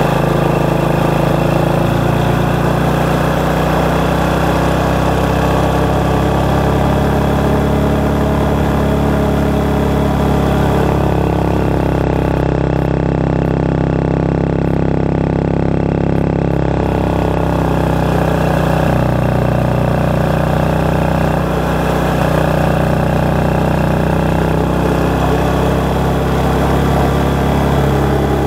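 Motorcycle engine running steadily while riding, picked up close by an external microphone mounted under the seat, so the engine note stands out over wind noise. The higher hiss drops away for a few seconds midway.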